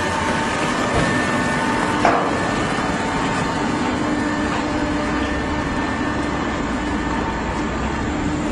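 Hydraulic cardboard baler running: a steady machine hum from its motor and pump, with a single clunk about two seconds in.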